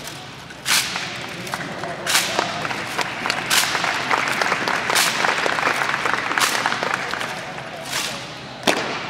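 Rifle drill by a Marine drill platoon: six sharp cracks of hands slapping M1 Garand rifles in unison, about every second and a half, with a scatter of lighter clicks of rifles and heels between them, over a crowd murmuring.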